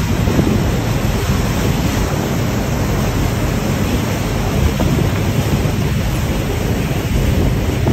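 Steady rush of wind on the microphone and churning wake water behind a moving cruise boat, with a heavy low rumble.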